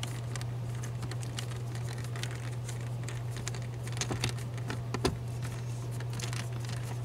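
Small irregular clicks and taps of a hand screwdriver turning out a T25 Torx screw from the plastic blower motor housing, with a few sharper clicks about four and five seconds in. A steady low hum runs underneath.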